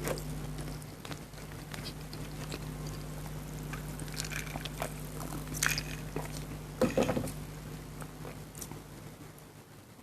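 Close-miked eating sounds: chewing and mouth clicks, with a few louder clicks, the loudest about seven seconds in, over a steady low hum.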